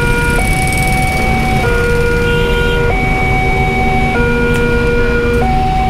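Railway level-crossing warning alarm sounding: an electronic two-tone signal that switches between a higher and a lower tone about every second and a quarter, warning of an approaching train. Steady road-traffic engine rumble runs under it.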